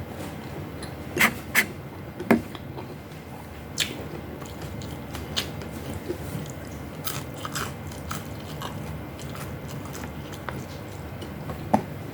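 Mukbang eating sounds: a person chewing and biting food close to the microphone, with sharp clicks and crunches scattered through, the loudest a little over a second in and again near the end.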